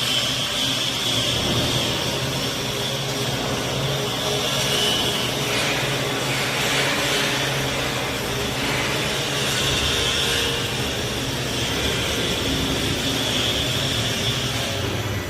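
Plasma arc torch keyhole-welding 12 mm thick stainless steel in a single pass: a steady hiss over a low hum, with little change throughout.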